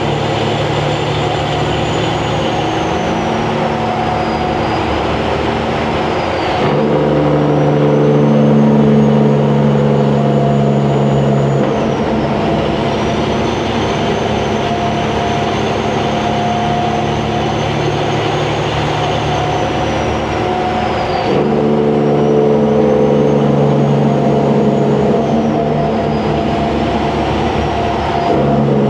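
Semi truck's diesel engine running through 8-inch straight stacks while driving, with a high turbo whistle that rises and falls. The engine note steps up louder about seven seconds in and again about twenty-one seconds in.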